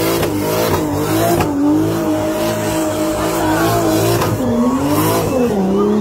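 Ford Capri's turbocharged Toyota 2JZ inline-six held at high revs through a burnout, with the rear tyres spinning on tarmac. The engine note wavers up and down, and the revs drop and pick up again twice near the end.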